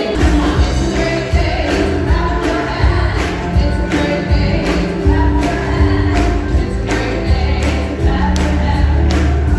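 Gospel music from a band with a steady drum beat and heavy bass, with voices singing.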